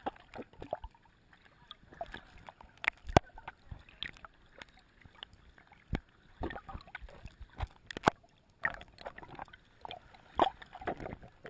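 Underwater sound of a camera held just below the surface in shallow water: water gurgling and sloshing around the housing, broken by irregular sharp clicks and knocks, a few louder ones about three, eight and ten seconds in.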